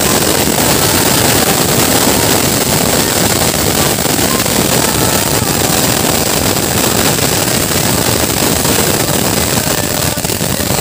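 Ground fountain firework (anar) burning: a loud, steady rushing hiss with dense fast crackle as it jets sparks upward.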